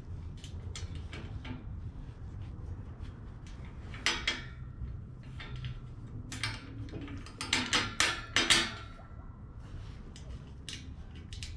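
Metal grille bracket and grille frame clinking and knocking as they are handled and fitted into place, with a louder clatter about four seconds in and a short run of clanks near eight seconds, over a low steady hum.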